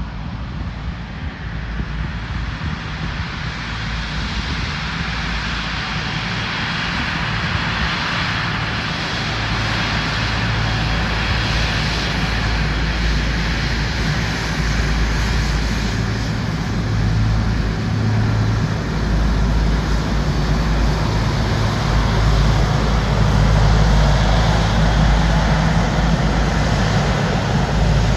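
Airliner's engines running, a continuous roar with a deep rumble that grows steadily louder as the aircraft comes closer.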